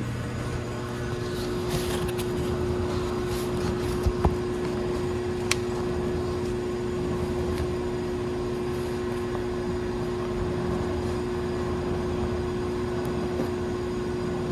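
Steady machine hum with one constant tone, typical of an air conditioner running, with a couple of low knocks about four seconds in and a sharp click soon after.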